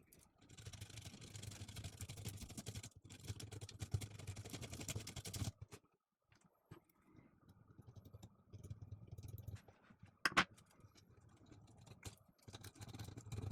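Sandpaper rubbing on the small metal contacts of a coffee grinder's push switch, cleaning off the black arcing marks, in two spells of scraping with a sharp click in between near the end.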